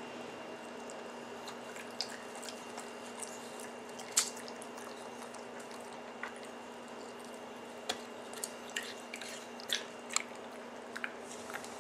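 Pug licking a wedge of watermelon: scattered wet smacking and clicking sounds from its tongue and mouth. The loudest is about four seconds in, and several come close together near the end.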